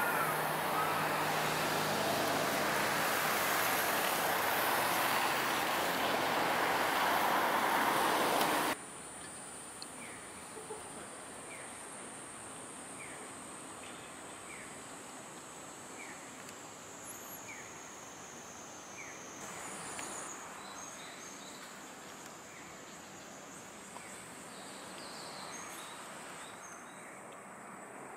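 Outdoor street ambience. A steady wash of traffic noise runs for about the first nine seconds and cuts off abruptly. Quieter ambience follows, with a faint short bird chirp repeated about once a second and a faint high steady whine.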